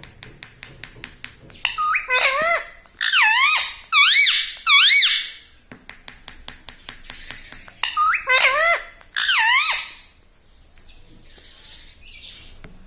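Indian ringneck parakeet squawking: loud, shrill calls that sweep up and down in pitch, in three bunches about two seconds in, around four seconds, and again near eight to ten seconds, with faint clicks between them.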